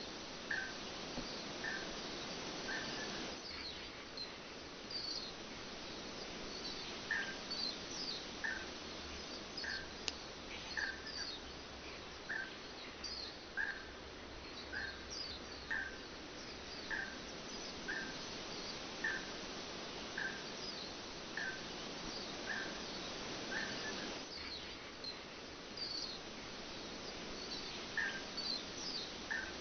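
Birds chirping over a steady rush of falling water. One bird repeats a short chirp about once a second, with other higher, quicker chirps scattered around it.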